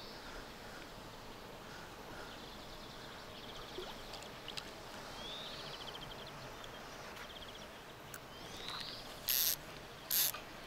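Quiet pond-side ambience with a small songbird singing the same short phrase over and over, a rising note followed by a quick trill, about every three seconds. Near the end come two brief, loud rushing noises.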